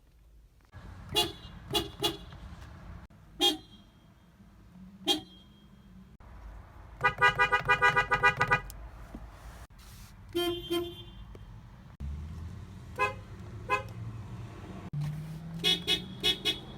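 Toyota car horns honked in a series of short toots: a few single taps, a rapid run of about nine quick honks in the middle, and four quick ones near the end, over a low rumble.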